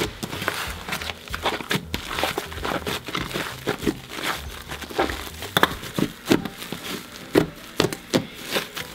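Hands squeezing and kneading a soft yellow butter slime with foam soap being worked in, making irregular sticky squishes, clicks and small crackling pops.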